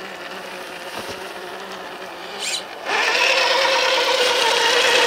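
Electric motor and gear whine of a 1/10-scale Traxxas TRX-4 High Trail RC truck running in high gear. It is faint at first, then turns louder and steady about three seconds in as the truck drives out across the ice.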